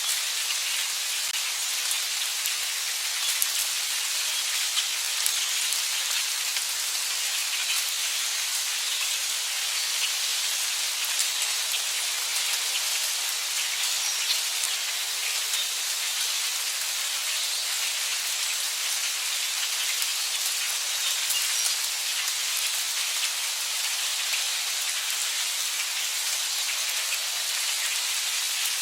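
Heavy rain falling steadily: a dense, even hiss of drops with many small individual drop ticks scattered through it.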